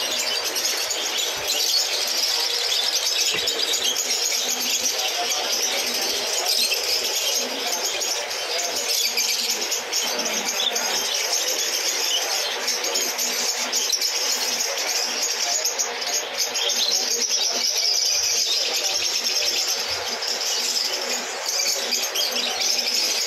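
Steady, dense chirping and chattering of many small caged birds all at once, high-pitched and unbroken.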